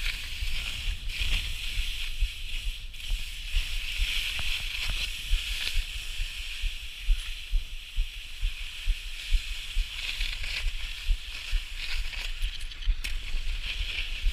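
Skis sliding and scraping over snow: a steady hiss that swells and fades with each turn, with low, uneven rumbles of wind buffeting the camera microphone.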